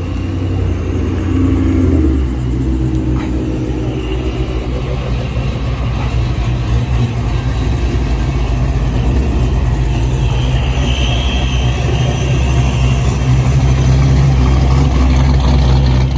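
V8 Ford Mustang exhaust, running at a steady idle with a deep low note.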